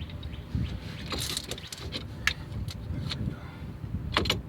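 A C-clamp being fitted onto a car's disc-brake caliper: a handful of scattered metallic clinks and knocks over a low rumble.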